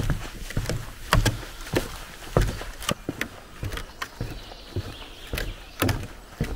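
Footsteps of a hiker walking at a steady pace, about two thudding steps a second.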